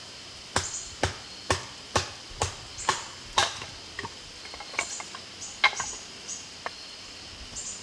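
Wood being split with a bushcraft knife: sharp knocks about two a second for the first few seconds, then a few lighter, scattered knocks.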